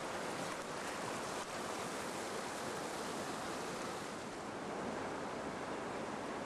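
Whitewater rapids rushing steadily, an even unbroken noise of fast, churning river water.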